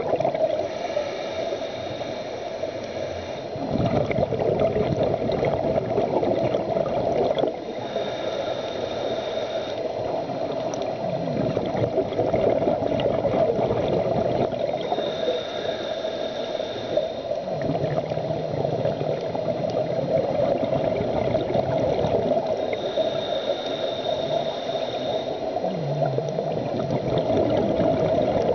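Scuba diver breathing through a regulator, heard underwater: four slow inhalations, each a hiss of about two and a half seconds with a faint high whistle, alternating with the low bubbling gurgle of exhaled air, over a steady drone.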